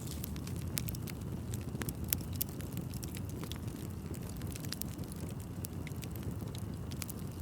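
Bonfire of burning wood crackling: frequent sharp pops and snaps over a steady low rumble of the flames.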